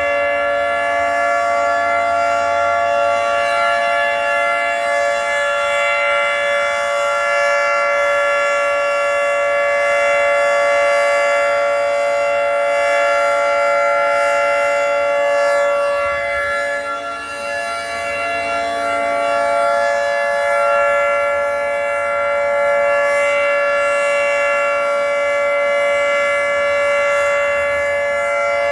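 Federal Signal 3T22 three-tone outdoor warning siren sounding a steady chord for a tornado siren test. It holds one pitch with no rise or fall, and its loudness dips briefly about two-thirds of the way through.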